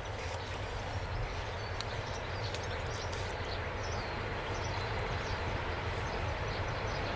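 Low, steady rumble of a diesel locomotive running out of sight after passing, with small birds chirping over it.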